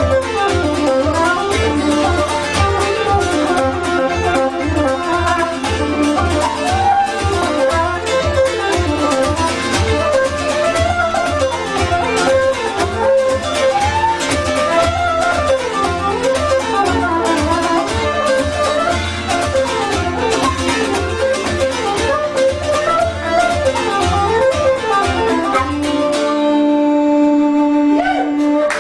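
Traditional Irish reels played on wooden flute, uilleann pipes and bouzouki: a fast, ornamented melody over a steady strummed rhythm. Near the end the tune stops on a long held final note.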